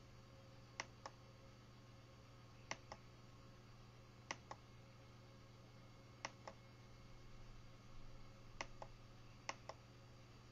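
The push-button rotary knob on an SMC4-4-16A16B CNC controller is pressed six times. Each press gives a sharp click, then a softer release click a fraction of a second later, over a low steady hum.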